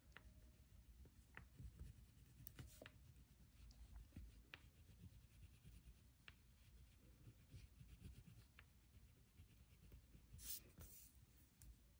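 Faint scratching of a wax crayon colouring on paper, with scattered small taps and a slightly louder rustle about ten and a half seconds in.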